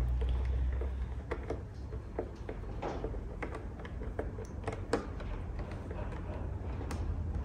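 Irregular small clicks and ticks of a hand-held Torx driver working the race screen bolts on a BMW R nineT Racer's fairing, metal tool against bolt and screen, over a low hum.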